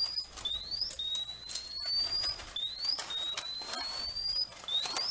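Portable multi-gas detector alarming, a short rising chirp and then a longer, slowly rising beep repeating about every two seconds: it is warning of carbon monoxide and low oxygen measured inside the sealed package. Snips and crinkles of scissors cutting through a foil pouch sound under it.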